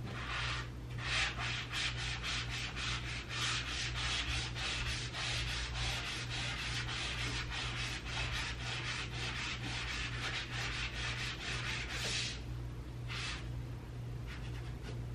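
Melamine foam eraser (Mr. Clean Magic Eraser) scrubbing scuff marks off a painted wall in quick back-and-forth strokes, about three to four a second. The scrubbing stops about twelve seconds in, with one more stroke and a few faint ones after. The wall was scrubbed hard enough that she thinks it took off some paint.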